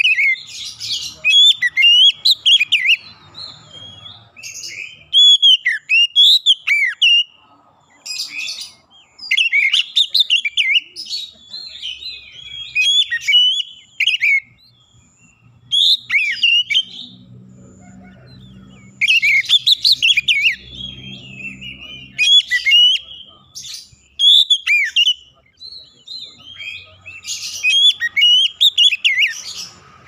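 Oriental magpie-robin singing loud, clear phrases of varied whistles with quick rising and falling notes, in bursts of a second or three separated by short pauses.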